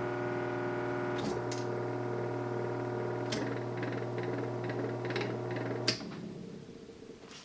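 GE 1/5 hp single-phase three-speed AC blower motor running bare on the bench with a steady electrical hum. A rotary switch clicks about a second in and again a couple of seconds later, and each time the motor's speed changes. A final click near six seconds cuts the power, the hum stops and the motor coasts down, fading away.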